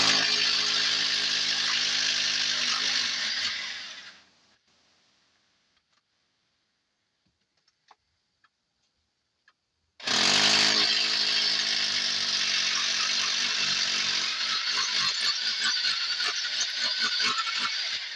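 Electric rotary hammer drill running hard into stone in two long bursts. The first stops about four seconds in, and after a pause of about six seconds the second starts and runs on.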